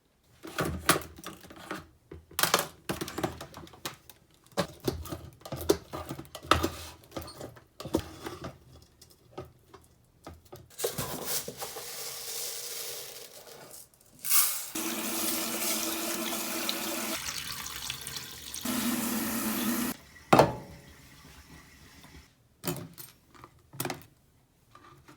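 Kitchen tap running into a sink in two long stretches through the middle, with knocks and clinks of dishes being handled before and after.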